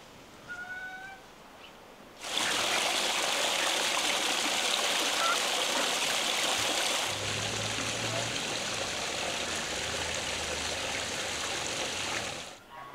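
Running or pouring water, a steady rush that starts suddenly a couple of seconds in and cuts off near the end.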